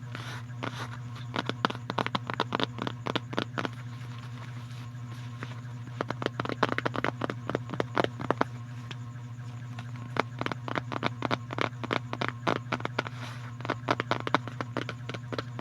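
Rapid, irregular clicks and crackles in dense clusters, with a thinner stretch in the middle, over a steady low hum.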